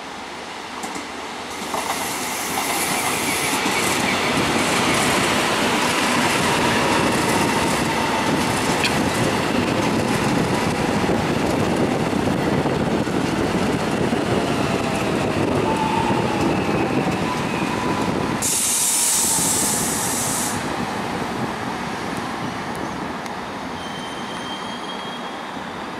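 Ten-car Korail 311000-series electric commuter train running past: steady wheel-and-rail noise that swells as it comes alongside and fades as it goes, with faint wheel squeal. A short burst of hiss about 18 seconds in.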